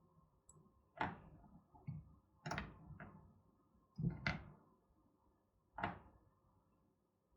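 Several sharp knocks and clicks of small tools and parts being handled and set down on a workbench during soldering work, the loudest about four seconds in.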